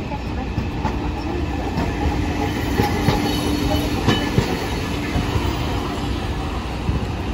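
Hiroshima Electric Railway 1900-series streetcar (No. 1901) rolling slowly past close by, a steady low rumble with a held hum. Its wheels clack sharply on the rails a few times, about three and four seconds in, as it goes by.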